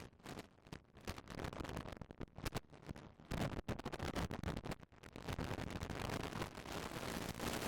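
A Caterham 340R's engine running on track, recorded onboard. It is largely buried under wind buffeting on the microphone, which makes the sound choppy and dropping out for the first few seconds, then steadier.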